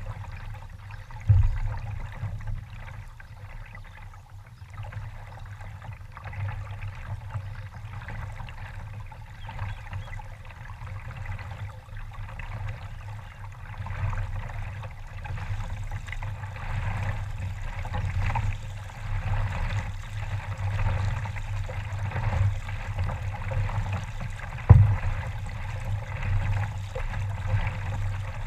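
Water trickling and lapping around a kayak as it is paddled slowly over calm water, picked up by a GoPro mounted on the boat. Two dull thumps stand out, about a second in and again near the end.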